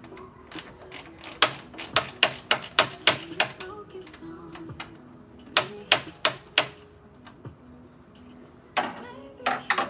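Sharp clicks from hand-tool work on the car's grille fasteners as the grille is being removed. They come in quick runs: about eight in two seconds, then four more, then a few near the end.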